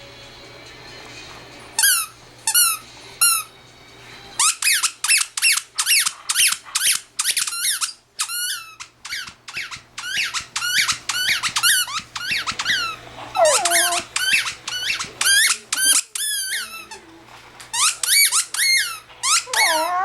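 Squeaky dog toy squeaked repeatedly as a puppy bites down on it: a few short squeaks, then a long, quick run of squeaks, each dropping in pitch.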